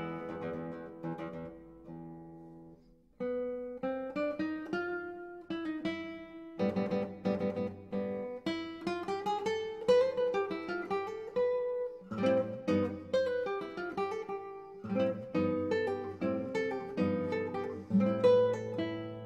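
Acoustic guitar music: plucked notes and chords, each ringing and fading, with a short lull about three seconds in before the playing picks up again.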